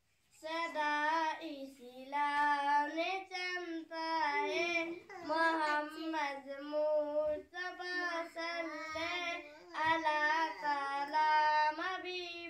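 A young girl singing solo and unaccompanied, starting about half a second in and carrying on in several sung phrases with short breaths between.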